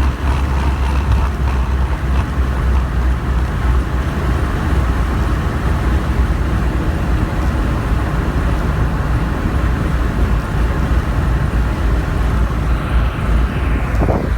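Car cruising at a steady speed in fifth gear, heard from inside the cabin: a low, even engine drone with tyre and road noise and no change in revs.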